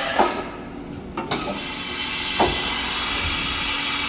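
Fadal VMC 15 CNC mill's automatic tool changer making a tool change: a few mechanical clunks, with a loud steady hiss starting about a second in.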